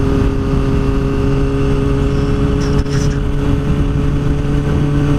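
Kawasaki Ninja ZX-6R inline-four engine running steadily while cruising at a constant low speed, its tone holding even, under a heavy rush of wind and road noise.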